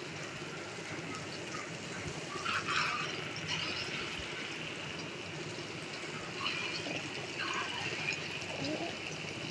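Masoor-dal and egg fritter batter sizzling steadily in hot mustard oil in a kadai, with short louder flares of sizzle a few times as more spoonfuls of batter are dropped in.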